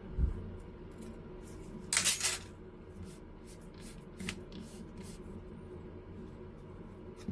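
Small hard lens parts being handled during disassembly of a Canon EF 24-70mm f/2.8L zoom: a soft knock, a brief scraping rustle about two seconds in, and a sharp click a couple of seconds later, with faint ticks between.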